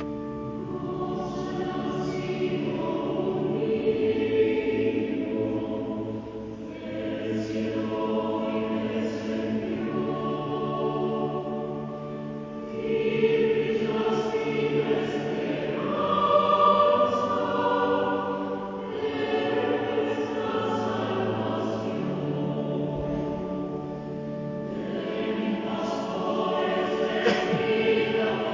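Mixed choir of women's and men's voices singing in several parts, in long sustained phrases with brief breaks between them.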